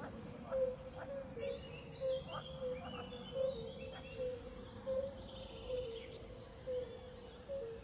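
Outdoor wildlife ambience: a short low call repeating about twice a second, with a run of higher bird chirps and twitters from about a second in to about four seconds in.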